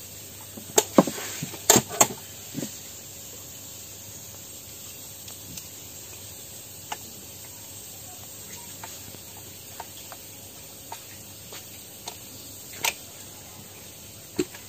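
Sharp plastic clicks and knocks of a power plug, cord and extension board being handled, the loudest about one and two seconds in, with a few lighter clicks later. Under them runs a steady low hum and faint hiss.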